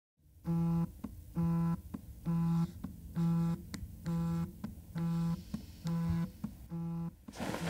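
Smartphone vibrating against a desk with an incoming call, buzzing in short pulses about once a second, eight times. Near the end a rustle of bedclothes comes in.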